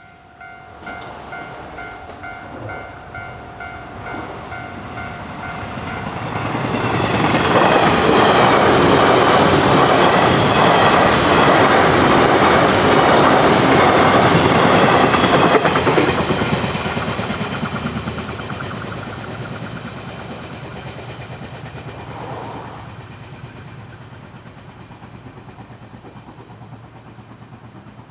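A Japanese level-crossing alarm rings in an even pulsing pattern. Then a 583-series electric sleeper train passes at speed: the rumble builds, stays loud for about eight seconds, and fades away.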